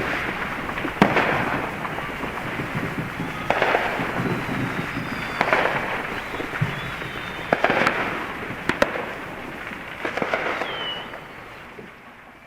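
A series of sharp bangs, roughly one every one to two seconds, over continuous crackling, fading out near the end.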